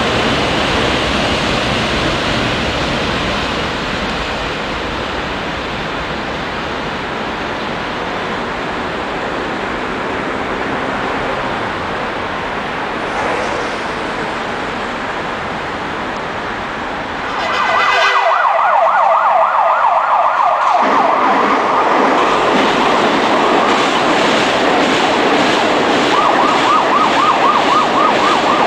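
Train crossing the railway bridge, a steady rushing rumble. About 17 seconds in, a loud, rapidly warbling emergency-vehicle siren starts up and becomes the loudest sound.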